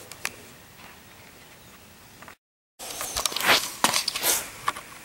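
Faint room tone, a short dead-silent gap from an edit a little past two seconds in, then a run of clicks, knocks and rustling from handling metal mower parts and the camera.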